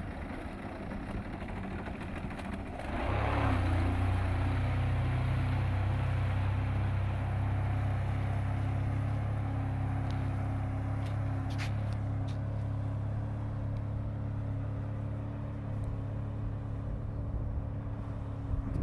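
Sea-Doo jet boat's engine throttling up about three seconds in, then running steadily with a low drone as the boat pulls away across the water.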